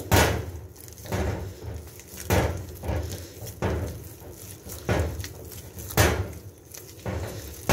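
Bread dough being kneaded by hand in a glass bowl to work butter in: a thump about every second and a quarter, seven in all, as the dough is pushed down into the bowl.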